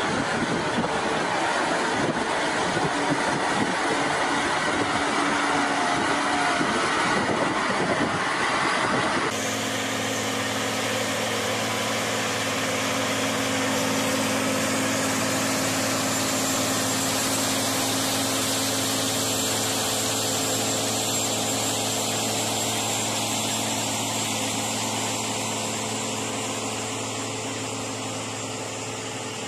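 Tractor engines working under load push sand, a rough, noisy sound; about nine seconds in it changes abruptly to the steady, even drone of a rubber-tracked tractor's engine pulling a field implement, easing off slightly near the end.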